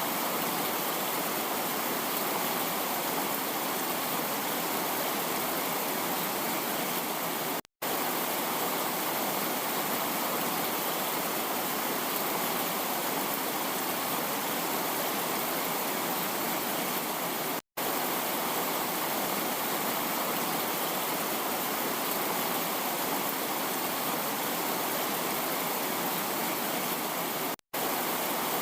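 Heavy rain falling as a steady, dense hiss. It cuts out for an instant three times, about ten seconds apart.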